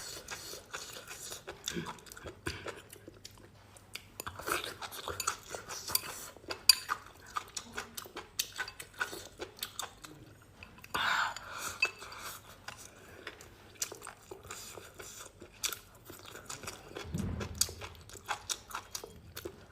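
Irregular clinks, knocks and scrapes of a metal spatula against a wok as food is stir-fried.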